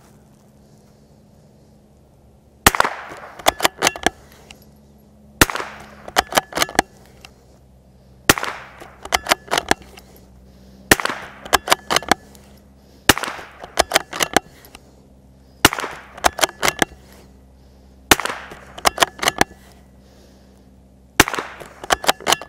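Ruger American .22 LR bolt-action rifle fired eight times, about one shot every two and a half seconds. Each sharp crack is followed by a quick series of clicks as the bolt is worked to eject the case and chamber the next round.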